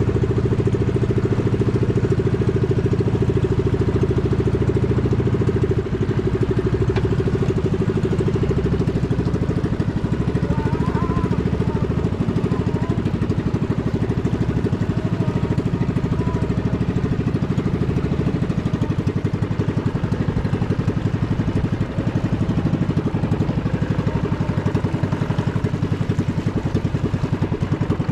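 Small engine of a wooden outrigger boat running steadily, a constant mid-pitched drone.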